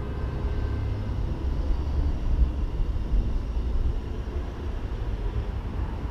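Wind buffeting the camera's microphone: a low, uneven rumble that rises and falls.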